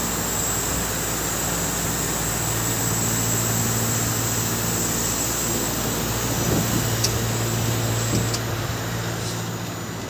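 Mitsubishi Heavy Industries VRF air-conditioning outdoor units running: a steady fan rush with a low hum and a faint high whine that stops about eight seconds in, with a few light clicks near the end.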